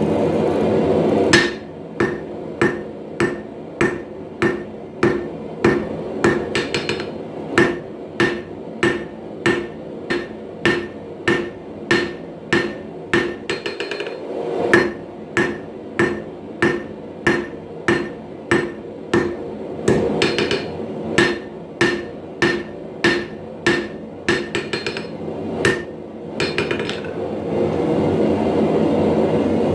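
Hand hammer striking steel on an anvil while forging a knife blade, a steady rhythm of ringing blows, nearly two a second. A steady rushing noise is heard just before the hammering begins and again near the end.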